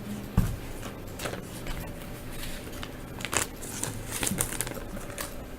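Trading cards and foil pack wrappers rustling and crinkling as they are handled, with a few sharper crackles.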